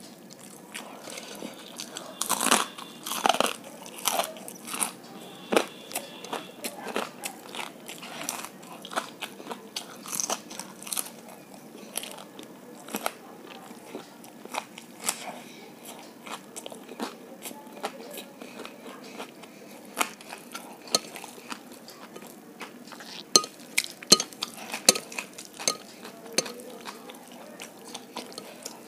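Close-miked chewing and crunching of crisp deep-fried gobi 65 (fried cauliflower), a steady run of sharp crackles and mouth sounds. The loudest crunches come about two to five seconds in and again a few seconds before the end.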